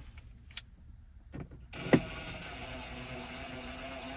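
A few sharp clicks, then a cordless screw gun's motor starts about halfway through and runs steadily, driving a screw to secure the radio unit in the dash.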